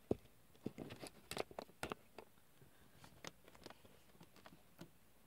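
Faint, irregular clicks and taps of small plastic toy figures being handled and set down on a cloth, with a few sharper ticks in the first two seconds.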